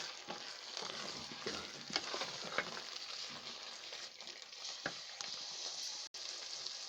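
A pot of rice, potatoes and peas cooking down in coconut cream, sizzling steadily while it is stirred, with a spoon scraping and clicking against the pot a few times.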